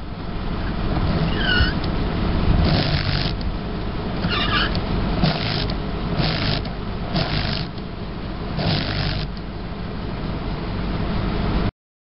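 A 1977 Lincoln Mark V running with a steady low rumble. Several short hissing bursts, each about half a second, break in at uneven intervals, and there are two brief chirps.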